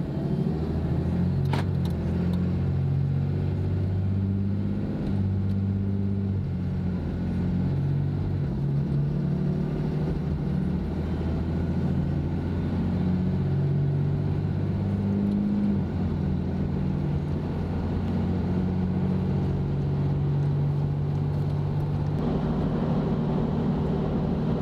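Cummins turbo-diesel inline-six heard from inside the pickup's cab, accelerating up through the 68RFE automatic's gears, its note stepping to a new pitch at each shift. It then settles into a steady low drone at a 70 mph cruise of about 1550 rpm, with more road noise joining near the end.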